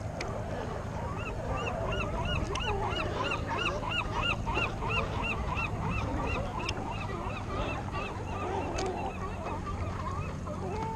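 A chorus of California sea lions barking, with many overlapping honk-like barks; for several seconds one animal barks in a quick, regular run of about three barks a second.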